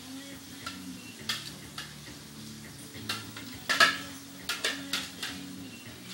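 Hollow plastic toy bowling pins knocking together, about ten irregular clacks, the loudest a quick pair of knocks just past the middle.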